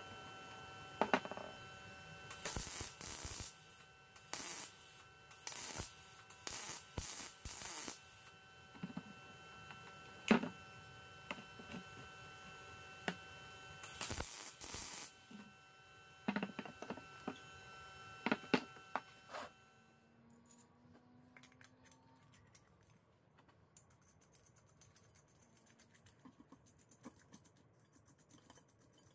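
MIG welder tack-welding a steel rod onto an oil filter: short bursts of crackling arc, five in quick succession in the first third and one more about halfway, with sharp clicks between them over a steady electrical hum. The hum stops about two-thirds through, leaving light clicks of metal parts being handled.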